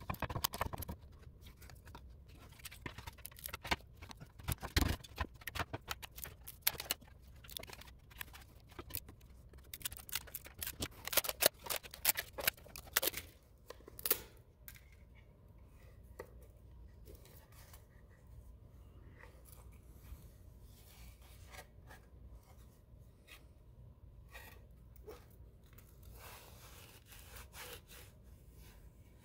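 Support material being peeled and snapped off a 3D-printed plastic part by hand: rapid runs of sharp cracks and crackles, densest around the middle, then quieter scattered clicks and rubbing of the plastic near the end.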